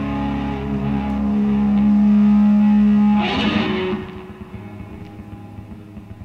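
Music: a held, distorted guitar chord ringing out, with a short noisy swell about three seconds in, then fading away.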